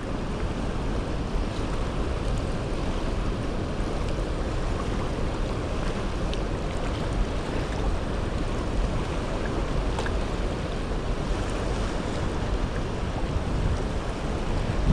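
Steady rush of a fast-flowing river, with wind rumbling on the microphone.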